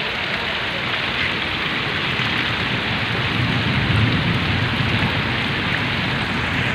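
Heavy rain falling steadily on wet ground, a dense even hiss.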